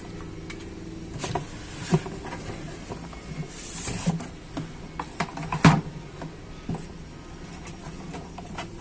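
Handling noise from a circular saw being lifted and moved inside its cardboard box: scattered knocks and scrapes of the saw's plastic and metal body against the cardboard, with a brief rustle. The loudest knock comes about five and a half seconds in.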